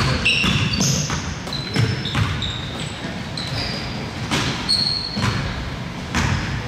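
Basketball bouncing during a game, irregular sharp thuds, mixed with short high-pitched squeaks of sneakers on the court floor.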